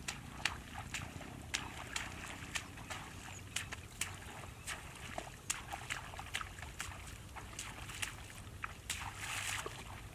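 Footsteps wading through shallow, muddy water, sloshing with each stride, over many sharp irregular clicks; the splashing grows louder near the end.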